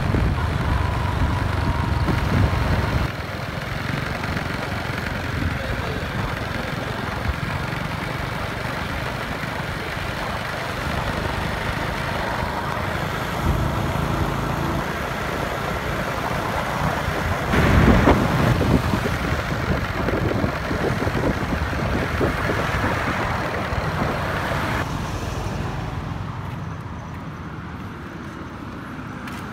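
Road noise from riding along in traffic, with wind rushing on the microphone and a louder surge just past the middle; near the end it gives way to quieter traffic passing by.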